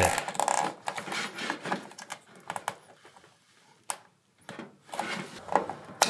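Nylon zip tie being pulled tight around a braided stainless supply line, its ratchet giving a run of small plastic clicks, with handling rattles of the hose against the fridge's metal back; the clicks thin out midway and pick up again near the end.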